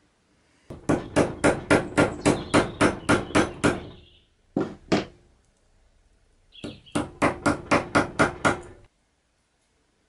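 Hammer tapping on metal in quick runs of about three blows a second, each blow ringing briefly: a run of about a dozen, two single taps, then a run of about eight.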